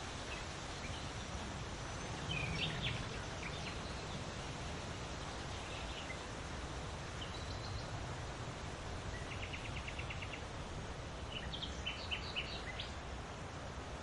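Steady wind noise with a low rumble, and small birds chirping now and then over it, including a short rapid trill about two-thirds of the way in and a burst of chirps near the end.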